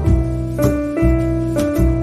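Background music: piano and bass chords over a steady beat of about two strikes a second.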